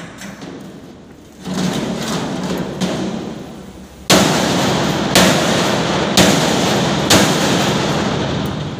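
Hammer blows on the steel wedges and fit-up dogs of a large welded steel tank shell, four loud strikes about a second apart starting about four seconds in, each leaving the steel shell ringing. Before them comes a rougher, steady noise lasting about two seconds.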